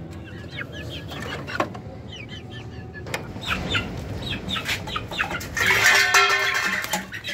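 Aseel chickens clucking in a run of short repeated calls, then a loud, harsh squawk about six seconds in.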